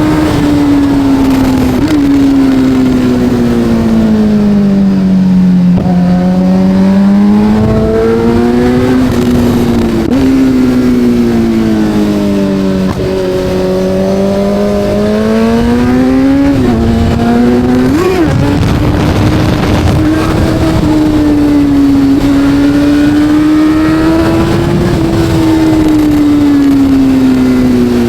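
Kawasaki Z900 inline-four engine under way, its pitch sliding down as it slows and climbing again as it pulls, several times over. It gives short jumps in pitch about 2, 10, 16 and 18 seconds in, like throttle blips on gear changes.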